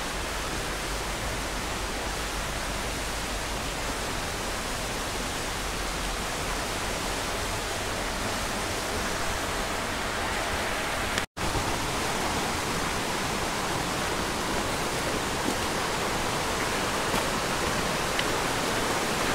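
Steady rushing of a mountain stream, broken by a momentary dropout about eleven seconds in.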